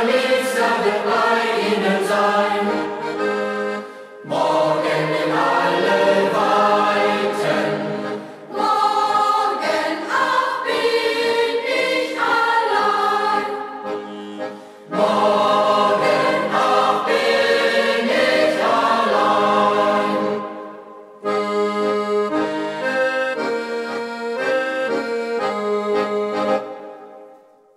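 Accordion playing with a group of young voices singing in chorus, in phrases broken by short pauses, closing a German campfire song. The music ends with a fade just before the end.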